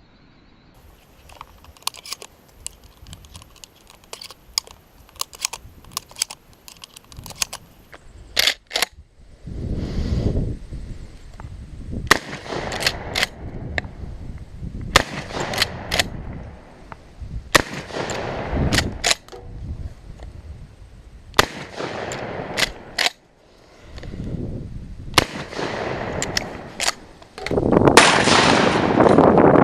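Adler A110 lever-action 12-gauge shotgun firing many shots, lighter cracks in the first few seconds and heavier reports from about eight seconds in. Each of the heavier shots is followed by a rush of noise lasting a second or two.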